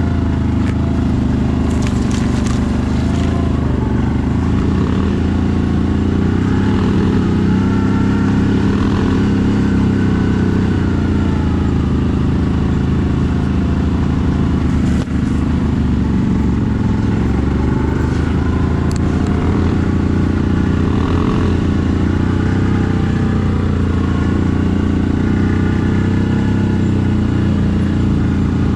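CFMoto 1000 ATV's V-twin engine running steadily while riding, its pitch rising and falling gently with the throttle. Now and then there is a brief click or scrape.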